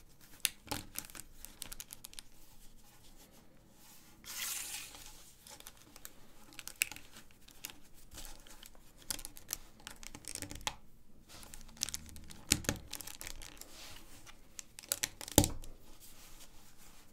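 LEGO 1x4 plastic plates being handled and pressed together: a run of small clicks and snaps, a brief rustle about four seconds in, and a few louder knocks, the loudest near the end.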